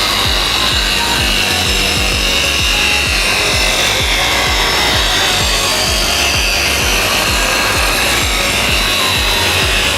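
A woodworking power tool cutting or sanding wood: a steady rasping with a high whine that wavers slightly in pitch, over a music beat.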